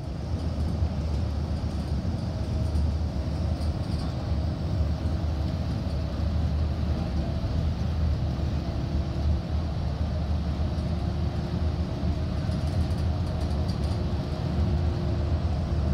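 City bus engine running, heard from inside the passenger cabin as a steady low rumble, with a faint steady hum coming in about halfway through.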